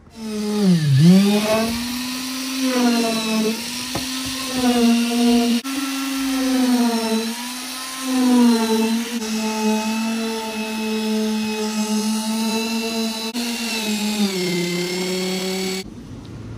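Electric concrete vibrator running in freshly poured concrete, a steady high motor hum. Its pitch sags under load about a second in, then wavers slightly as it is worked through the mix, and it cuts off suddenly near the end.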